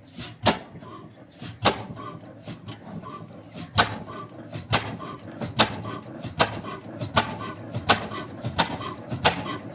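Old 20 HP single-cylinder stationary diesel engine firing in slow, separate sharp beats. The beats come steadily closer together as the engine picks up speed after starting.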